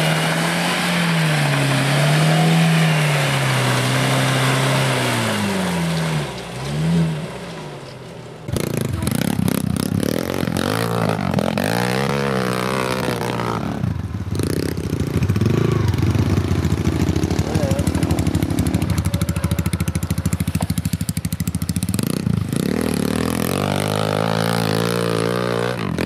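Bronto Rys (Lada Niva-based) 4x4's engine revving up and down as it pushes its mud tyres through deep mud, dying away after about six seconds. About eight seconds in, the sound switches to Motoland XR 250 enduro motorcycle engines, revved hard again and again as the bikes climb the muddy ravine.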